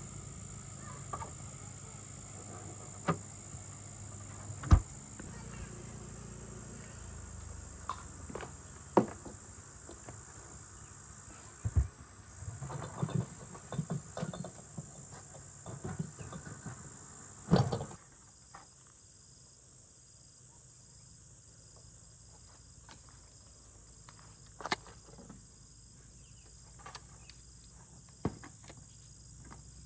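Scattered knocks and clatters over a steady low hum that cuts off a little past halfway. After that, insects chirp in an even, pulsing rhythm, with a few more sharp knocks.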